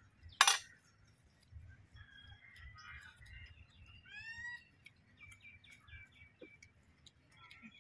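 Birds chirping and calling, with several different short calls, including a quick series of gliding notes around the middle and a run of short repeated notes after it. A single sharp knock, the loudest sound, comes about half a second in.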